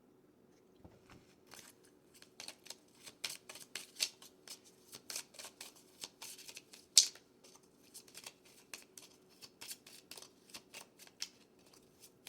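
A tarot deck being shuffled by hand: a run of quick, irregular crisp card strokes starting about a second and a half in, with one louder snap about seven seconds in.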